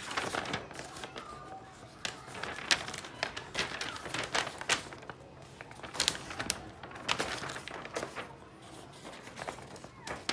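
Paper pages of a model kit's instruction booklet being leafed through and handled: irregular rustling broken by sharp flicks of paper as the pages turn.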